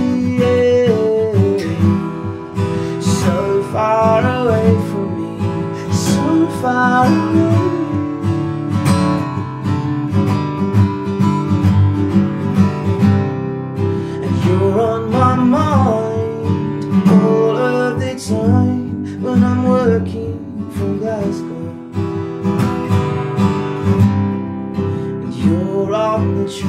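Acoustic guitar strummed steadily in a folk song, with a man singing over it in several phrases.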